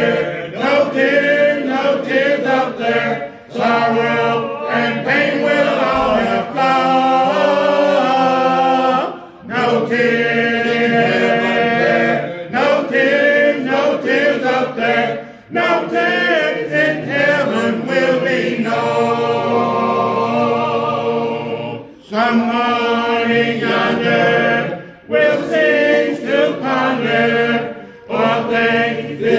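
A congregation singing a hymn unaccompanied (a cappella), a man's voice leading at the microphone. Long held notes in phrases of a few seconds, with brief breaks between phrases.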